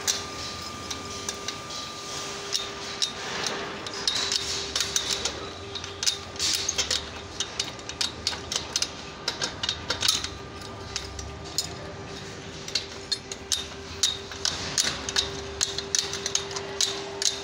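Spanner clinking and tapping against rusty steel scaffold couplers and tube while a coupler's nut is worked: an irregular run of sharp metal taps, thickening after a few seconds, over a steady background hum.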